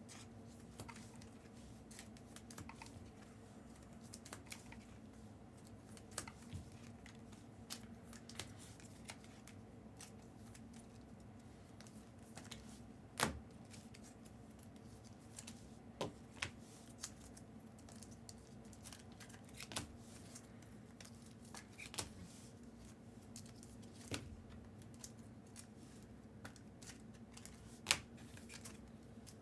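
Sparse light clicks and taps of trading cards and card holders being handled and set down on a table, one every second or few, over a faint steady hum.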